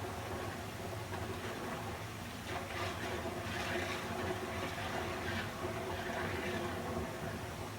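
Flowing water rushing steadily with gentle swells, over a low steady hum, played as white noise.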